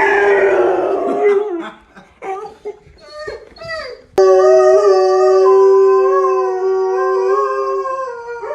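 Dogs howling: wavering howls at first, then, after a sudden start about four seconds in, a long, steady howl held for about four seconds.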